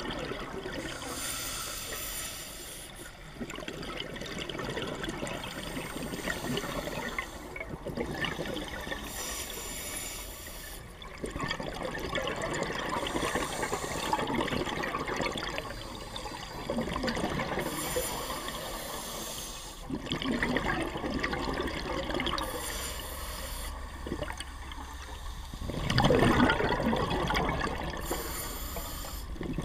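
Scuba diver breathing through a regulator underwater: a hiss on each inhalation, roughly every four seconds, alternating with the bubbling rush of exhaled air. The loudest burst of bubbles comes a few seconds before the end.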